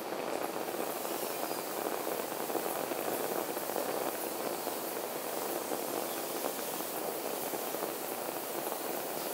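Gas burner flame heating an oil bath, burning with a steady, even rushing noise that does not change.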